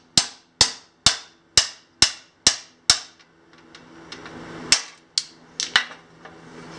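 Sharp hammer taps on a table saw's tilt crank, knocking the knob out of it: about eight strikes at roughly two a second, a pause, then three more.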